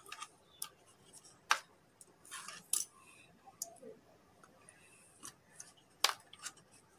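Light, irregular clicks and taps of steel dissection instruments against one another and the plastic kit tray as they are picked up and set back, the sharpest about a second and a half in and again about six seconds in.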